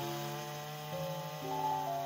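Background music: a slow melody of held notes that change pitch every half second or so.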